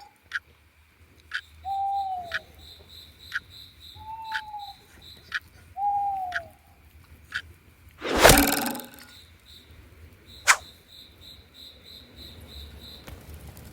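A short falling call, owl-like, repeats four times about two seconds apart over steady insect chirping and light ticks. A single loud crackle comes about eight seconds in.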